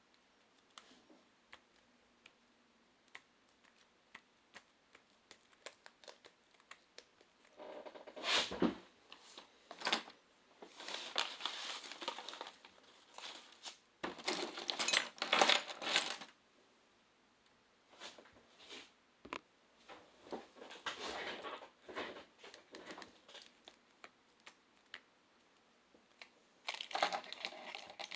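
Hands working on a tablet during a touchscreen glass replacement: light scattered clicks and taps, then several short stretches of crinkling and scraping of plastic, film and tools.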